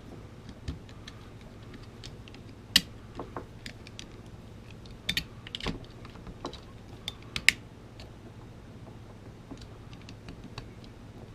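Small multitool screwdriver tightening a screw on a Flojet pump's pressure switch: scattered light clicks and ticks of the bit on the screw and plastic housing, with a few sharper taps, over a faint steady hum.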